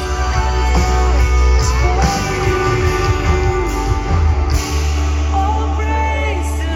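Music with singing, guitar and a steady bass line.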